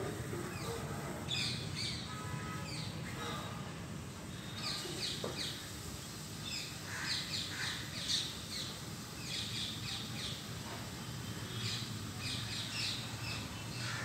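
Birds chirping and calling, many short high chirps coming one after another, over a low steady background hum.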